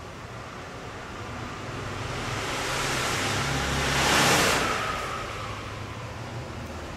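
A vehicle passing by: its noise swells to a peak about four seconds in and then fades away, over a low hum.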